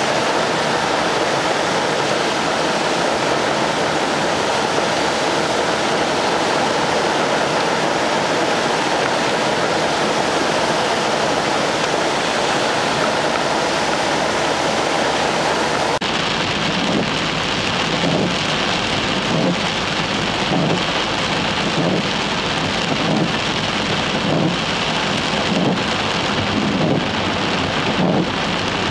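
Heavy rain with runoff water pouring, a steady rushing noise. About halfway through it cuts to heavy rain hitting a moving car, heard from inside as it drives through road spray, with an uneven pulsing rush.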